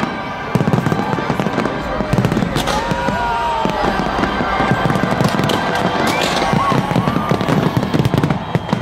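Fireworks display going off in a dense, continuous barrage of cracks and bangs.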